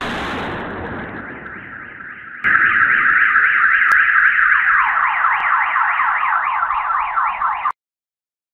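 A sudden loud blast with a rumbling tail that fades over a couple of seconds, the explosion of a drone strike. About two and a half seconds in, a car alarm goes off, first a rapid warbling tone, then a falling whoop repeated about three times a second, which cuts off abruptly near the end.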